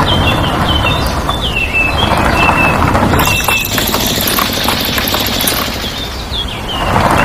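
Small birds chirping over and over in short, falling chirps, over a steady low rumble of noise.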